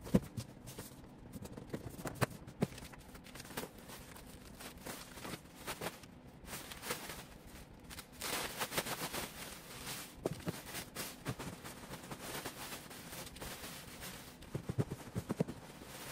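A large white plastic sack rustling and crinkling as it is opened out and fitted inside a big cardboard box, with scattered light knocks of the cardboard flaps; the rustling is loudest a little past halfway.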